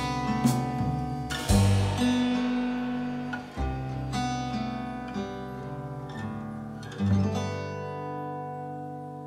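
Background music on acoustic guitar: plucked notes and strummed chords ringing out, slowly fading toward the end.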